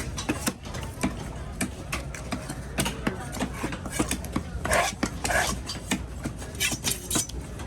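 Knife cutting a grouper on a cutting block: a run of sharp knocks, several a second, with two longer scrapes around the middle.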